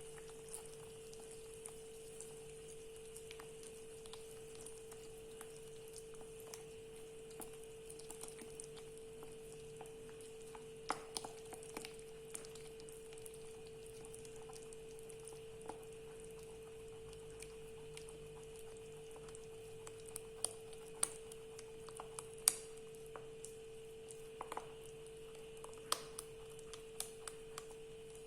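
Faint, scattered clicks and taps of a utensil stirring thick pancake batter in a bowl as warm milk is mixed in, over a steady hum.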